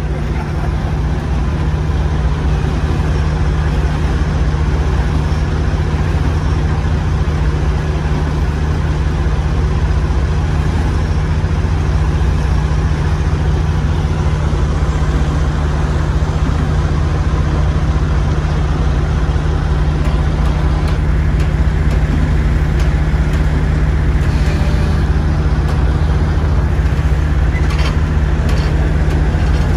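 Heavy diesel truck engine running steadily at a constant speed, a deep, even drone.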